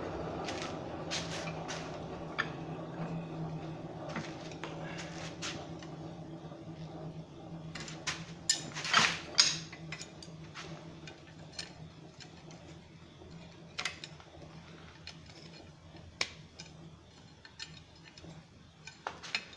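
Scattered metal clinks and clanks of steel tongs against the hot quarter-inch steel rod and the vise as the forged Turk's head knot is squeezed and pulled tight, loudest about eight to ten seconds in. Under them, a low steady hum fades away over the first half.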